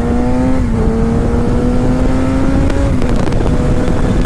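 2016 Kawasaki ZX-6R's inline-four running through an M4 Street Slayer exhaust with its baffle installed, pulling up through the gears: the engine note climbs, drops sharply at an upshift about a second in, climbs again and drops at a second upshift about three seconds in. Heavy wind noise buffets the helmet microphone underneath.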